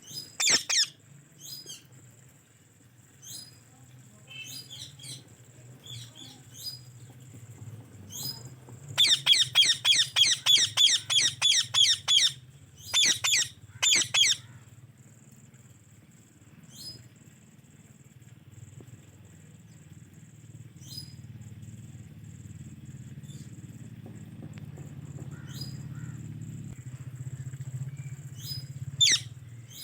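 White Indian ringneck parrot chirping. Scattered short chirps are followed, about nine seconds in, by a rapid run of loud calls at about four a second for three seconds, then a couple more. The bird then falls mostly quiet over a steady low hum, with one last call near the end.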